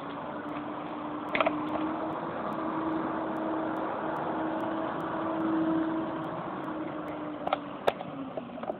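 A motor vehicle's engine hum, steady then swelling, that sinks in pitch and fades near the end, over a background rush of water. A few sharp knocks come through it.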